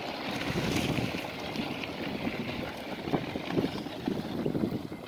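Wind buffeting the microphone, with mountain bikes rolling past on a dirt track: knobby tyres crunching and rattling over the ground.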